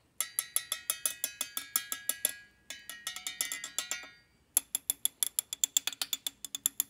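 A flat metal bar tapped rapidly on aluminium T-slot extrusions, about eight taps a second in three runs. The first two runs ring with a clear metallic tone, like a hollow extrusion. The last run is sharper and rings less, the more solid sound of an extrusion filled with epoxy granite.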